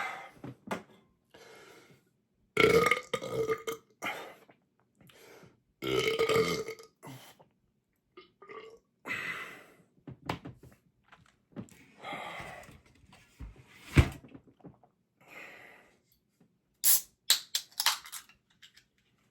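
A man belching loudly, over and over, bringing up gas from soda gulped down on a full stomach. The two biggest belches come about 3 and 6 seconds in, with smaller ones between. A sharp knock comes about 14 seconds in, and a quick cluster of short, sharp sounds comes near the end.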